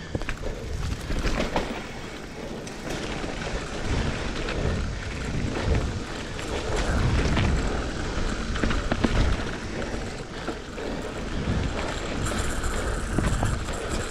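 Mountain bike (GT Aggressor Pro) ridden along a dirt singletrack: wind buffeting the camera microphone and tyres rolling on dirt, with frequent rattles and knocks from the bike over bumps.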